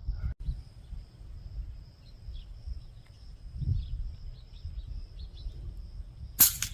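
Outdoor ambience: a low rumble, a steady high insect drone and a few faint bird chirps. A brief, loud burst of noise comes near the end.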